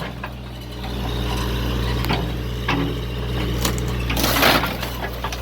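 Cracking and crunching as a scrap car's windshield glass and dash are broken out: a few sharp cracks, then a louder crunch about four seconds in, over a steady low engine hum.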